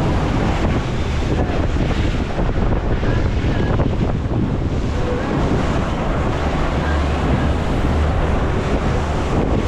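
Steady wind buffeting the microphone over the rush of sea water around a boat, with a low rumble underneath.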